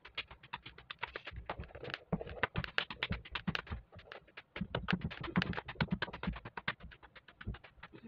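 Roti dough being slapped flat between the palms by hand: quick, rhythmic pats, about seven or eight a second, with a short pause about four seconds in.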